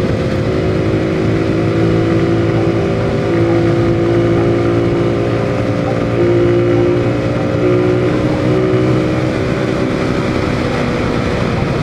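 Motorcycle engine running at a steady pace on the move, with a steady rush of wind and road noise over the mounted camera.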